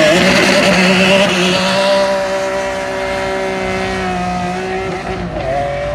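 Ferrari Enzo's V12 engine accelerating hard away from the line, with one upshift about five seconds in, then pulling again. The sound fades slightly as the car draws away.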